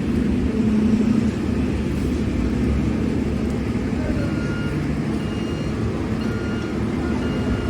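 Diesel engine of heavy road-paving machinery running steadily, with a reversing alarm beeping about once a second from about halfway through.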